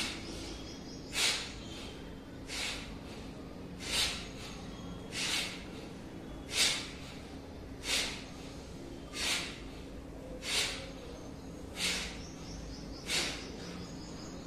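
Forceful rhythmic breathing of a yoga breathing exercise: a sharp, hissing breath about every 1.3 seconds, about eleven in all, at an even pace.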